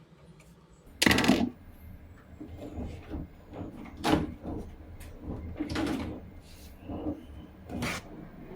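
Handling noises: a loud scraping clatter lasting about half a second, about a second in, then several separate knocks and clunks.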